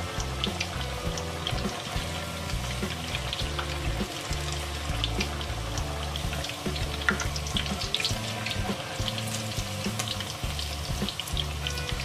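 Paneer pieces deep-frying in hot oil, a dense steady sizzle with constant small crackles, over background music.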